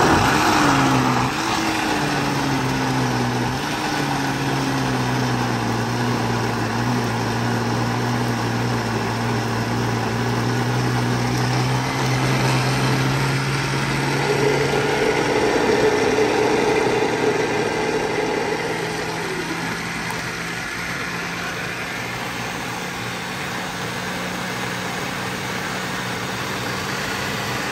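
Countertop blender running continuously, churning thick puppy mush of soaked food and baby rice cereal. The motor's pitch sags just after it switches on as it takes the load, then shifts to a higher tone about halfway through and settles lower near the end.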